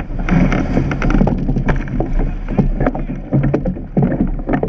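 Surf boat being rowed hard: water rushing and splashing along the hull, with repeated sharp knocks from the oars working in their gates. Wind rumbles steadily on the microphone.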